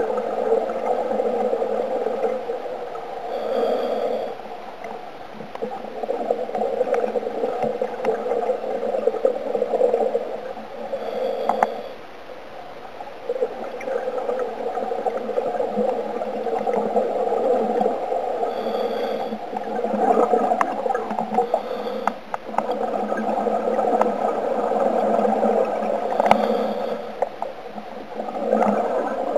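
Scuba diver breathing through a regulator, heard underwater: long gurgling rushes of exhaled bubbles broken by short pauses every several seconds.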